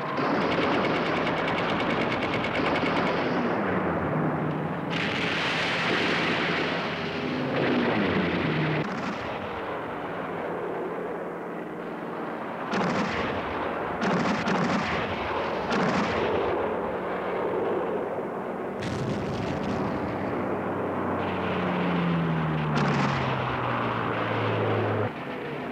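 Anti-aircraft guns firing in rapid, sustained volleys with heavy bursts, over the drone of aircraft engines, as warships come under air attack. Near the end an aircraft engine's pitch falls steadily as it passes.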